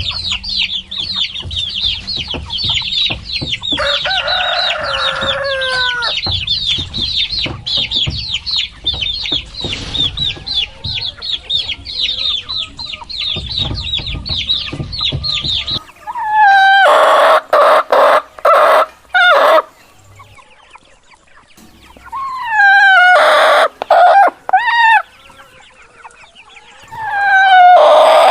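Chickens: a dense chorus of chicks peeping rapidly at high pitch, with a hen clucking, over a low rumble. About halfway through the peeping stops and a rooster crows loudly, three times about six seconds apart, each crow falling in pitch, the last starting near the end.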